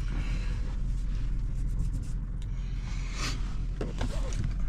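Steady low rumble inside a car's cabin as it is driven, with a brief swish about three seconds in.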